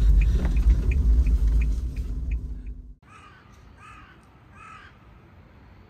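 Loud low noise with a light, regular ticking for about three seconds cuts off suddenly. Then, much quieter, a crow caws three times.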